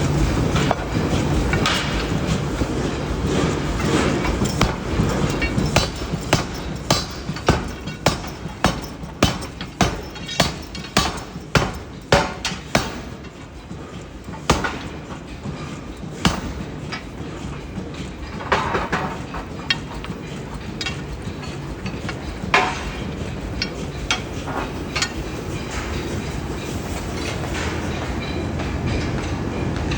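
Forge-shop machinery rumbling steadily. About six seconds in comes a run of heavy, evenly paced hammer blows on metal, about two a second, lasting some seven seconds, followed by scattered single metal knocks and clanks.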